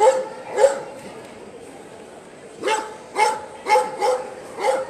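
Dog barking: two barks, then a run of five quick barks about two and a half seconds later.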